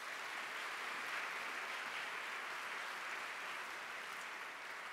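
Audience applauding steadily in a round of welcome for a speaker taking the stage; the clapping begins to ease near the end.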